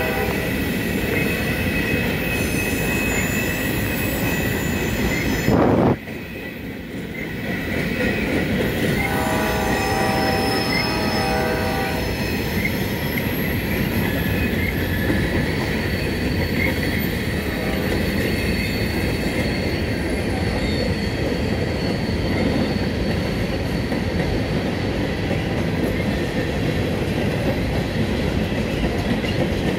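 Freight train of covered hopper cars rolling past close by: a steady rumble of wheels on rail with thin, high wheel squeal. About six seconds in there is a short loud burst, followed by a couple of seconds of duller, quieter sound.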